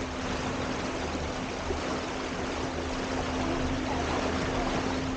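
Small electric boat under way: water rushing past the hull as an even wash, over a steady low hum from the electric motor.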